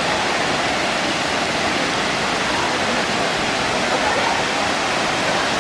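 Water pouring down a tall waterfall: a steady, even rushing noise.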